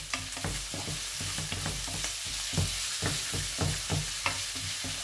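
Chopped vegetables sizzling as they sauté in oil in a frying pan, stirred with a wooden spatula that repeatedly scrapes and knocks against the pan, about three strokes a second.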